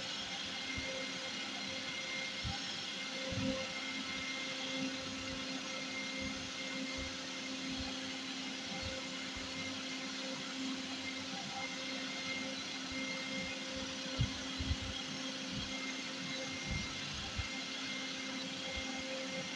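A steady machine-like whirring hum with a few constant tones in it, and scattered faint low thumps.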